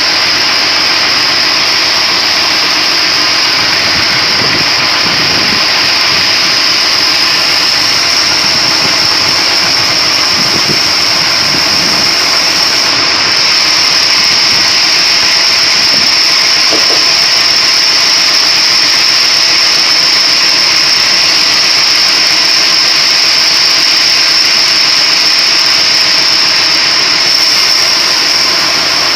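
Splitting machine running steadily, with a loud, constant high-pitched whine over its mechanical noise.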